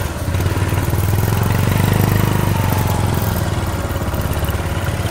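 Bajaj Discover motorcycle's single-cylinder engine running steadily under throttle as the rear wheel spins in loose sand, a little louder about two seconds in: the bike has dug itself into the soft ground.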